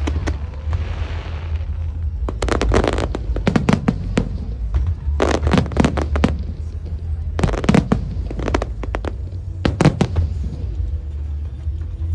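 Fireworks going off: clusters of sharp bangs and crackles every couple of seconds over a steady low rumble, with a brief hiss about a second in.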